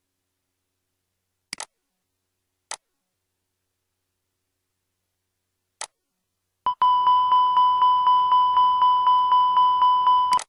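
A few short clicks, then, about two-thirds of the way in, the Airbus A320 cockpit's continuous repetitive chime: a steady pulsing alarm tone at about five beats a second that sounds with a red warning, here the landing gear not locked down after gear extension.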